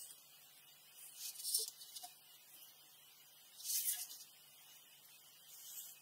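Pencil and steel ruler working on a large sheet of drawing paper: two short, soft scratching sounds, about a second in and again near four seconds in.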